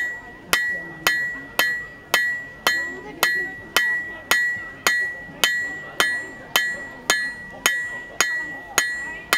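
Blacksmith's hand hammer striking a steel bar on an anvil in an even rhythm, about two blows a second, each blow ringing with a clear high tone. Round bar stock is being drawn out square.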